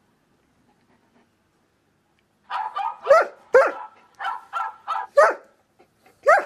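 German Shepherd giving a quick series of about eight short, yelping barks with its muzzle raised, starting a little over two seconds in. The last call, at the very end, draws out into the start of a howl.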